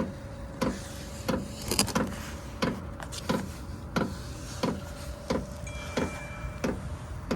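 Diesel heater's fuel dosing pump ticking steadily, about three ticks every two seconds, over the steady hum of the heater's blower fan. This is the start-up stage, while the heater is still blowing cold air.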